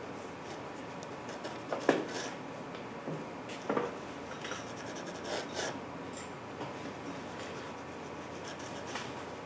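Pastel pencil scratching and rubbing on paper in short, light strokes, with a couple of sharper scrapes about two and four seconds in.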